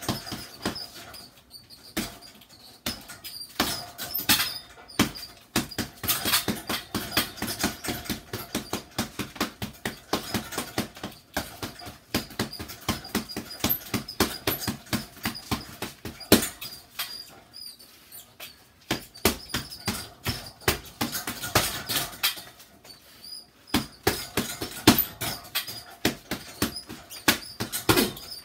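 Boxing gloves hitting an upright punching bag on its stand, in fast flurries of punches broken by short pauses.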